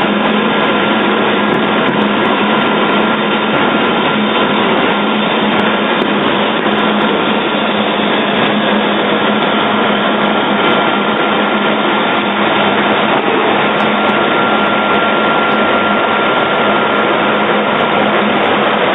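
Wet-type soybean extruder running at full tilt: a loud, unbroken machine din with a constant low hum and a thin high whine.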